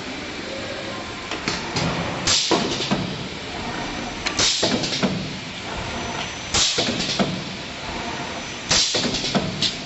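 Automatic wire star-frame making machine for spider strainers cycling: a short burst of air hiss about every two seconds, four in all, with sharp metallic clacks between, over a steady machine hum.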